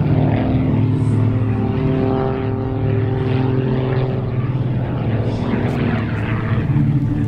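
MXS aerobatic plane's piston engine and propeller droning steadily in flight, the drone wavering about five seconds in.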